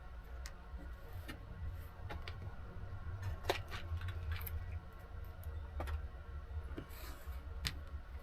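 Scattered small clicks and light metallic rattles as small hardware is sorted by hand to pick out a little screw, over a low steady hum.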